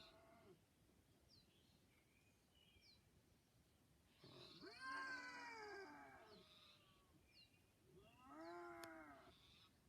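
Two long, faint wailing calls from an animal, each rising then falling in pitch and lasting over a second, about four seconds in and again near the end; faint short chirps sound in between.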